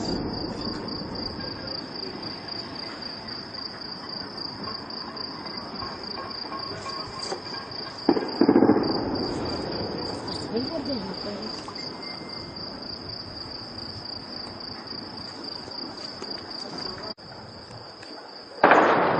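Crickets trilling steadily. About eight seconds in, a single heavy gunshot booms and echoes away over a few seconds, and another bang comes just at the end.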